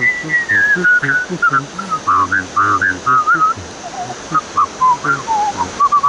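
A whistled polka melody with a wavering vibrato, gliding from note to note, over the low, rhythmic oom-pah accompaniment of a hand-cranked barrel organ. A waterfall rushes steadily underneath.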